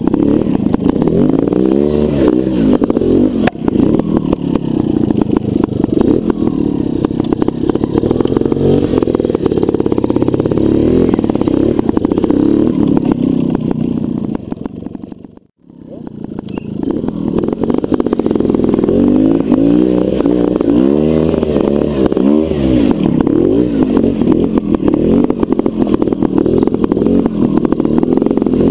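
Trials motorcycle engine running at low revs with repeated short throttle blips, its pitch rising and falling with each blip. The sound fades out about halfway through and fades back in.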